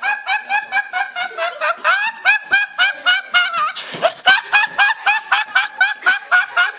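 A teenage boy laughing uncontrollably: a long run of high-pitched, squealing laughs in quick short bursts, about four or five a second.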